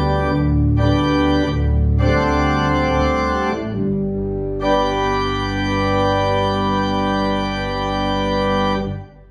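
Church pipe organ playing sustained full chords over a steady bass, closing on a long held chord that is released about nine seconds in, with a short reverberant die-away.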